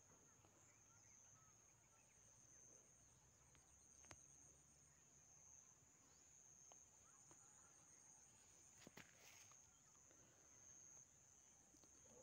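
Near silence: a faint, steady high-pitched insect drone, with a few soft clicks.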